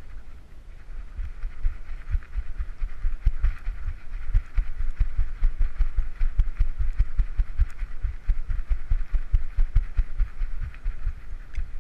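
Rapid, rhythmic low thumps from a dog running, as the GoPro mounted on its back jolts with each stride, over a steady high hiss.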